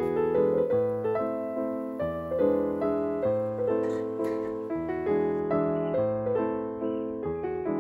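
Background music: a gentle solo piano melody, each note fading after it is struck.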